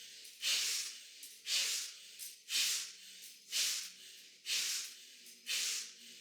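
One person doing pranayama breathwork: strong, forceful breaths through the nose in a steady rhythm, about one a second, each starting sharply and trailing off.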